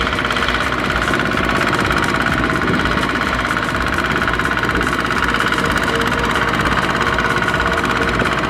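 Single-cylinder diesel engine of a Kubota two-wheel walking tractor running steadily with a rapid chugging, hauling a trailer loaded with rice sacks through mud.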